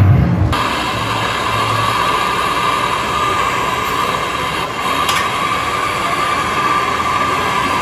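Handheld butane gas torch burning with a steady hiss as it heats a stainless steel pipe at the bend. The hiss starts abruptly about half a second in.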